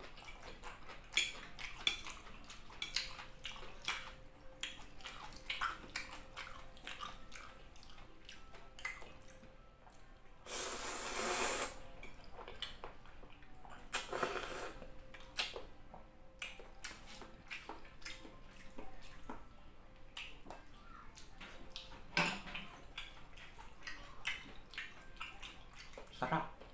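Close-up eating sounds: a fork and clam shells clicking against a plate, with wet mouth sounds. Two loud slurps of noodles, about ten seconds in and again around fourteen seconds.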